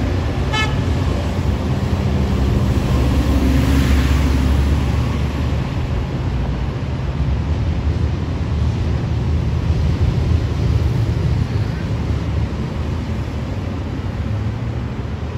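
Metra bilevel commuter cars rolling past on elevated track: a steady low rumble of wheels on rail that eases slightly near the end. A short beep sounds about half a second in.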